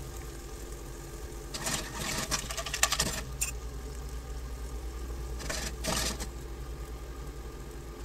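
Asari clams sautéing in olive oil in a frying pan, their shells clattering against the pan in three short bursts as they are moved about, over a steady low hum.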